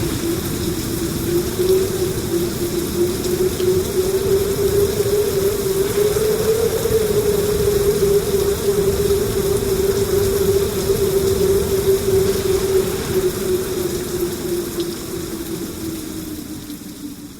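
Steady rain hiss under a sustained eerie drone tone that slowly wavers in pitch, the whole sound fading away near the end.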